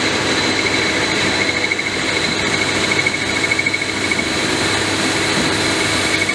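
CNC turning center's spindle turning the workpiece at about 1000 rpm while the turning insert takes a facing cut across its face. The machine runs steadily, with a high whine over its running noise.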